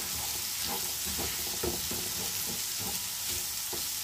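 Sliced gourd and egg sizzling in a metal karahi while a wooden spatula stirs and scrapes through them, about two strokes a second.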